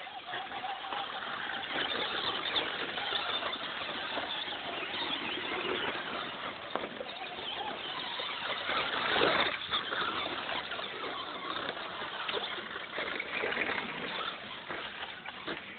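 Electric radio-controlled off-road cars running, their motors whining and tyres scrabbling, loudest about nine seconds in as they pass close.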